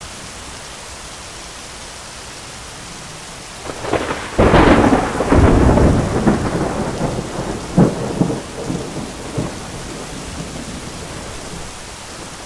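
Thunderstorm sound effect: steady rain hiss, with a thunderclap about four seconds in that rumbles on for a couple of seconds, then a sharper crack of thunder near eight seconds that fades back to the rain.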